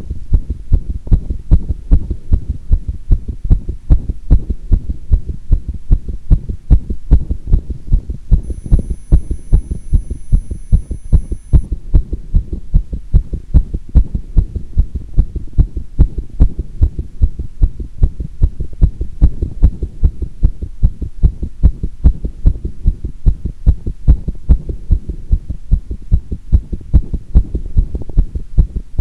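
Human heartbeat heard through a microphone pressed against the chest, beating steadily at about one and a half beats a second after squats.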